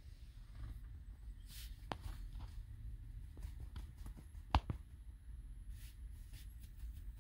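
Quiet car cabin: a low steady rumble with a few faint clicks, one sharper click about four and a half seconds in.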